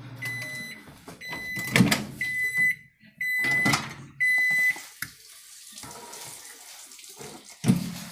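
Microwave oven's hum cuts off and it beeps five times, about once a second, signalling the end of the heating cycle. Sharp knocks come among the beeps, and there is a click and a thump later.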